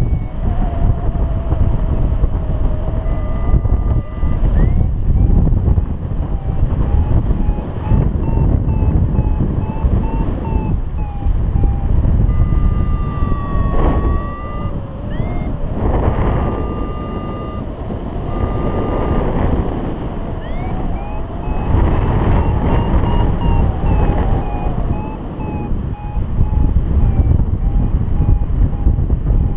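Wind rushing over the microphone of a paraglider in flight, with a variometer beeping over it. The beeps come quick and repeated and rise and fall in pitch, the sound a variometer makes when the glider is climbing in rising air.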